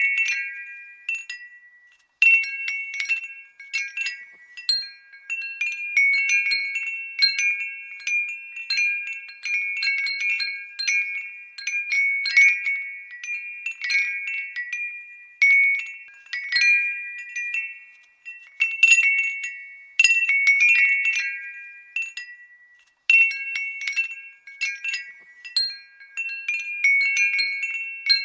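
A glass wind bell (furin) tinkling: irregular, overlapping strikes with clear high ringing tones that die away, in clusters broken by brief pauses.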